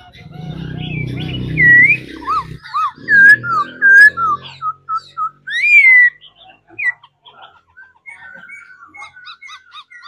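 Caged laughingthrush (khướu) singing loud, clear whistled phrases of rising and falling notes, then a quieter run of quick short notes near the end. A low hum sits underneath during the first half.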